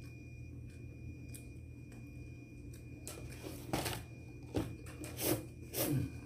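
A handful of short crinkling rustles from something being handled and pulled about, starting about halfway through and coming in quick succession to the end. Before that there is only a low steady background.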